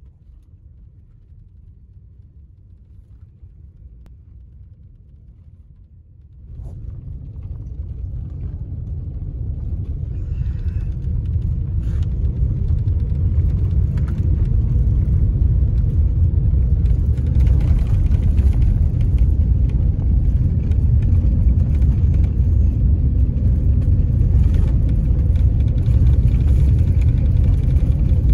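Low rumble of a vehicle driving on a snow-covered road, heard from inside the cab. Quiet at first, it gets suddenly louder about six seconds in and keeps building for several more seconds before it settles into a steady rumble.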